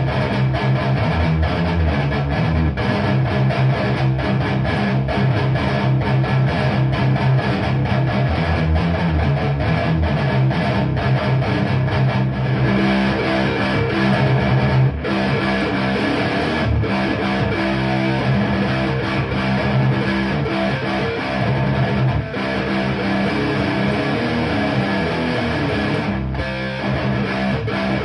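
Distorted electric guitar playing rhythmic riffs with rapid repeated strokes and low chugging notes. It is a Blackmachine guitar with DiMarzio FRED pickups, played through a Framus Cobra 100-watt head into a Marshall MF400A cabinet loaded with Celestion G12-K100 speakers.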